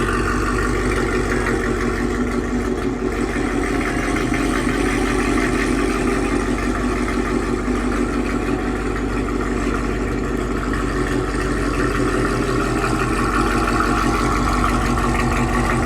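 Supercharged 6.2-litre V8 of a 2020 Camaro SS running steadily through an AWE Touring cat-back exhaust with a Corsa X-pipe, holding an even, unchanging engine note with no revving.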